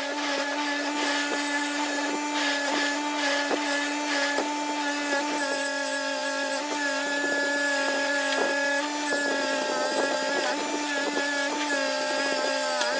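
A small high-speed power tool motor running at a steady pitch, with scraping and occasional short clicks as it works against a hard workpiece.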